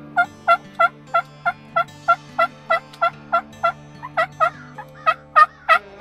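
Turkey yelping: a long, even series of sharp yelps, about three a second, going on without a break.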